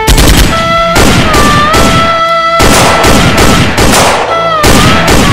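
Sustained automatic fire from several Kalashnikov-style rifles, shots following one another rapidly without a break, over background music holding long notes that glide from one pitch to the next.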